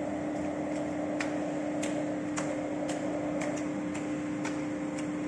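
A steady machine hum holding one pitch, with faint, irregular clicks about every half second to second.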